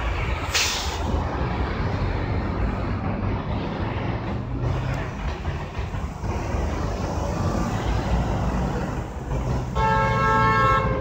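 City street traffic noise with a steady low rumble and a short hiss about half a second in. Music comes in near the end.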